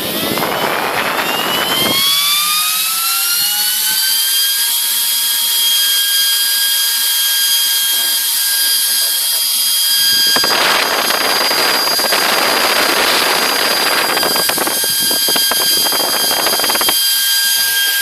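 Delta PFR0812XHE 80 mm brushless DC fan spinning up with a rising whine over the first few seconds, then running at full speed with a steady, high-pitched whine over loud air rush. It is driven at about 25 V, a fully charged 6-cell LiPo voltage and double its 12 V rating. From about ten seconds in to about seventeen, a heavier rushing noise comes and goes over the whine.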